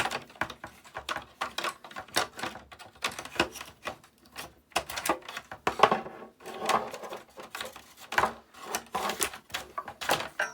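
Rapid, irregular clicks and knocks of an Acorn BBC Model B's power supply unit and case being handled and fitted back into place.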